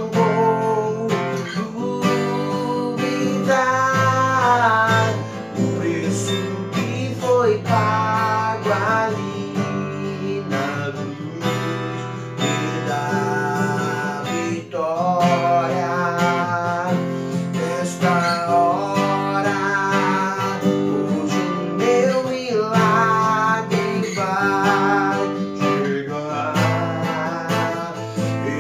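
Acoustic guitar strummed in steady chords under a man's singing voice, which comes in phrases with a wavering pitch: a gospel hymn performed solo.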